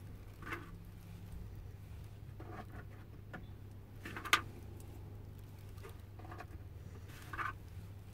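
Quiet hand work with plastic clothespins and a thin wooden lining strip on an oud bowl's rim: soft rustling and three light clicks, the sharpest about four seconds in. A low steady hum runs underneath.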